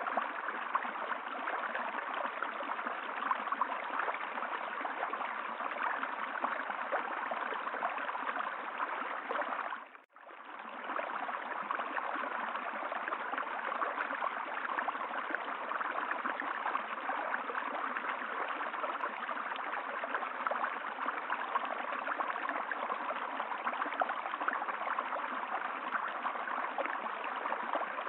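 Running water, a steady flowing rush like a stream. About ten seconds in it briefly fades almost to nothing and comes straight back, as at a loop point in the recording.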